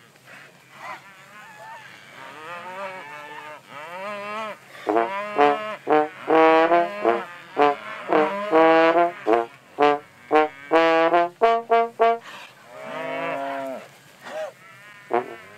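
Solo trombone playing a tune in short, separated notes, louder from about five seconds in, with one longer held note near the end.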